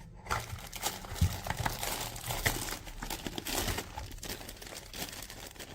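Packaging crinkling and rustling in irregular crackles as an accessory is taken out of its wrapping by hand, thinning out toward the end.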